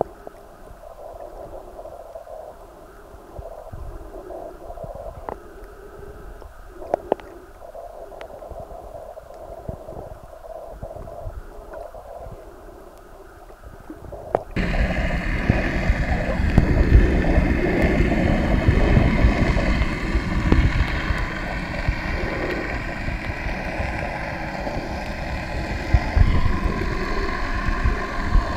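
Muffled underwater water noise picked up by a camera in its waterproof housing. About halfway through it suddenly becomes much louder and fuller.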